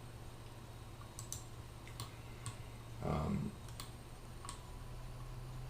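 Scattered clicks of a computer mouse and keyboard, about six sharp separate clicks, with a brief murmured vocal sound about three seconds in.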